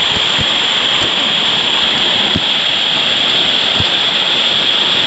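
Steady, loud rush of river water, like a waterfall or rapids close by.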